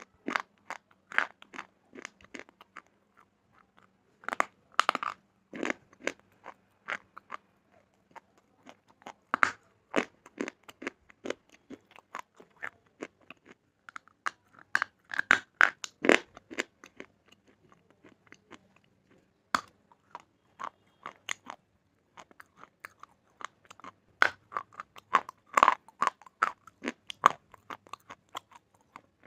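Slate bars being bitten and chewed: crisp, irregular crunches in quick clusters with short pauses between them.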